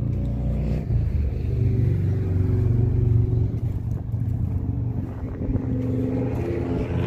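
Road traffic beyond a tall brick wall: cars passing as a steady low drone that swells about two to three seconds in, damped by the wall.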